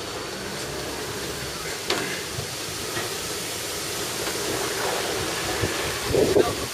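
Steady rushing noise of an open-sided tour boat moving through the water, with a single click about two seconds in. Wind starts buffeting the microphone near the end.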